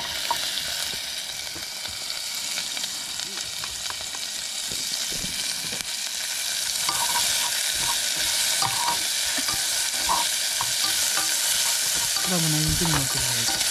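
Onion frying in oil in a pan, sizzling steadily while it is stirred, the utensil scraping and clicking against the pan. The sizzle grows louder about halfway through.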